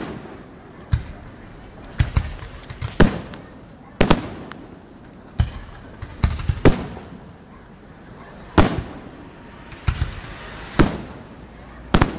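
Aerial fireworks shells bursting: about a dozen sharp bangs at uneven intervals, roughly one a second and some in quick pairs, each with a short echoing tail.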